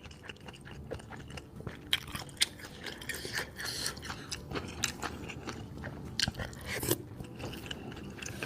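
Close-miked chewing of bakso meatballs: a continuous run of wet mouth smacks and short, sharp biting clicks.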